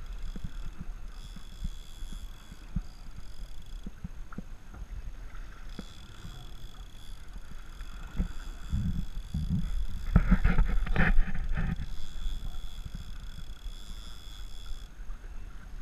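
Sport-fishing boat at sea: a steady low engine rumble with wind and water noise and scattered knocks. It gets louder and rougher for a few seconds past the middle.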